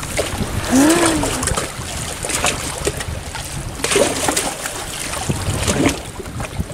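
Small sea waves lapping and splashing against shore rocks and the foot of a metal stairway, with wind on the microphone. A short voice-like call rises and falls about a second in.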